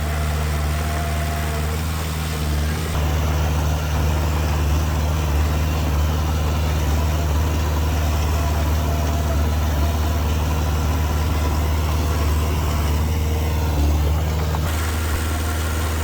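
Diesel engine of heavy earthmoving machinery running steadily, growing a little louder about three seconds in, its sound shifting near the end.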